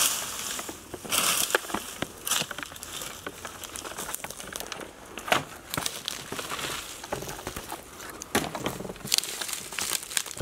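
Rake dragging through dry cut grass and cane stalks: uneven rustling and crackling scrapes, with sharper crunches here and there.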